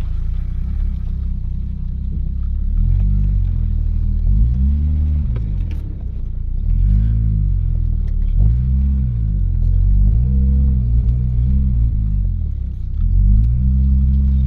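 Turbocharged 4.0-litre Ford Intech SOHC inline-six running, its revs rising and falling about five times under light throttle. It is coughing and spluttering a little after sitting unused for about a year.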